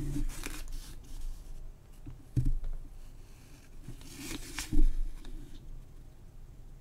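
Handling noise of a paper instruction card being rustled and set down on a desk, with scattered small clicks and two sharp thumps, the louder one about five seconds in.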